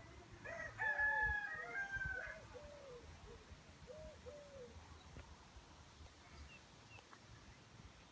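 Birds calling outdoors: one louder, drawn-out call with several pitches from about half a second to two seconds in, among repeated short low notes in pairs that fade after the first half.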